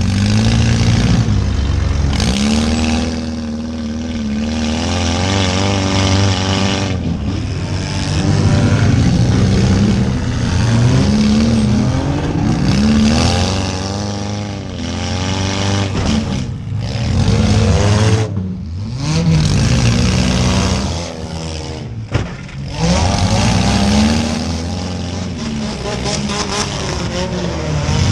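Compact demolition derby car engines revving up and dropping back again and again as the cars accelerate and back up.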